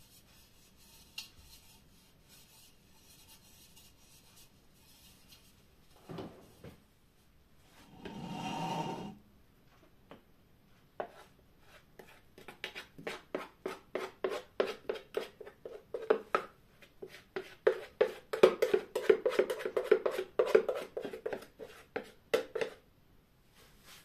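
A utensil scraping cake batter out of a plastic mixing bowl in quick repeated strokes, several a second, through the second half. There is a brief dull noise about eight seconds in.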